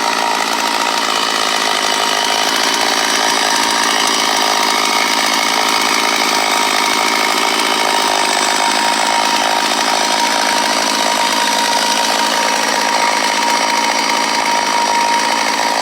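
Brand-new O-JENAS MS381 Stihl-clone two-stroke chainsaw running steadily on its first run, with no changes in speed.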